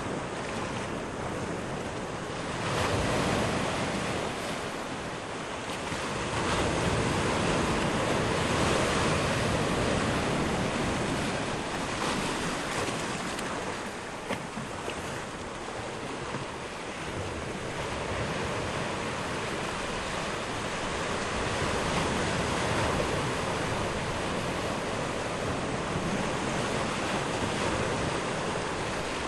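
Small waves washing onto a shore at low tide, a continuous surf hiss that swells and eases every few seconds.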